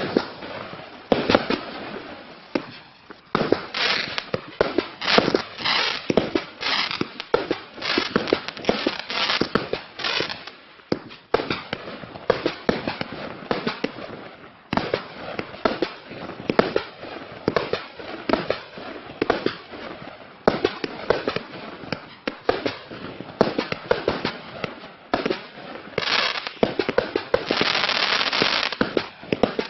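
Klasek Fireworks Show 192, a 192-shot 25 mm compound fireworks cake, firing a rapid run of shots, about two or three a second, that burst into crackling stars. Near the end the crackle thickens into a dense, continuous sizzle.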